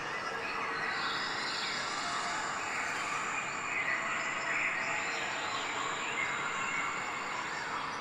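Steady outdoor background hiss with faint, high chirps from ducklings preening.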